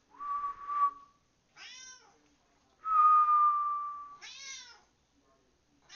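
A person whistles a long steady note twice, and a tabby cat meows back after each whistle, with one more short meow at the end. The second whistle is the loudest sound.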